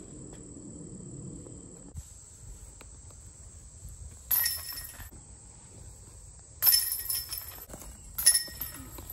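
A steady high insect trill that stops about two seconds in, followed by three sudden loud ringing impacts, each fading over about a second.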